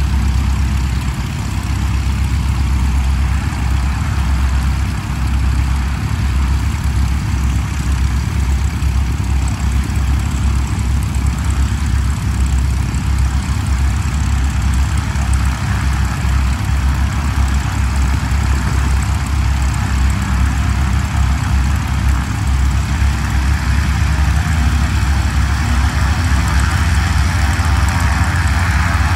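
Light aircraft piston engines running on the airfield: a steady low rumble with a fast even beat, with a higher engine sound growing louder over the last several seconds.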